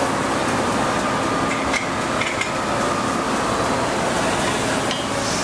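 A steady hiss of machine-shop noise with a few sharp metal clicks and knocks, about two seconds in and again near the end, as a handheld air gauge is set against the journals of a steel crankshaft.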